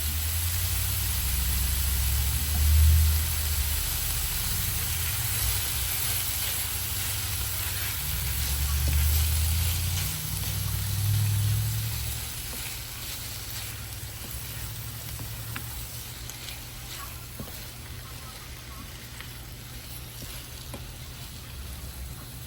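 Food sizzling as it fries in a pan, a steady hiss, with low rumbling swells during the first twelve seconds and a few light clicks later on.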